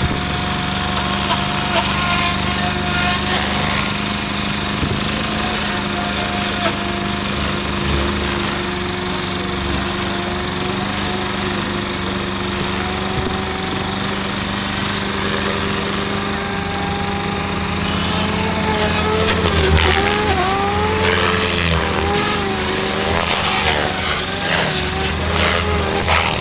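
SAB Goblin 700 radio-controlled helicopter flying 3D aerobatics: a steady whine from its motor and spinning rotor blades. About two-thirds of the way in, the pitch starts to swing up and down and it grows a little louder as the helicopter is thrown through hard manoeuvres.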